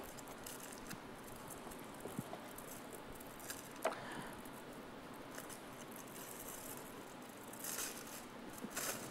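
Faint kitchen handling sounds: a few light, scattered taps and clicks of utensils and food being worked on a counter, over quiet room tone.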